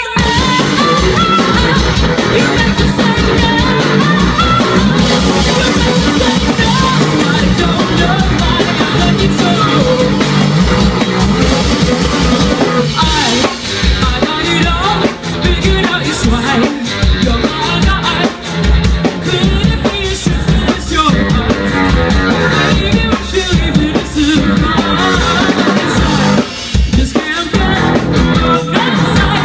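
A live band playing loudly: a woman singing into a microphone over a drum kit and guitar.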